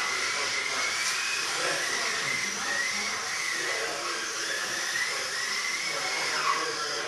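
Electric motor of a 1/28-scale micro RC car whining, its pitch rising and falling again and again as the car speeds up on the straights and slows for the corners.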